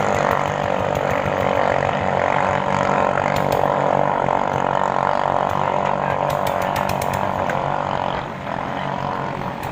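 Small Chinese-made engines of ketinting long-tail racing boats running flat out in a steady buzz, easing slightly about eight seconds in.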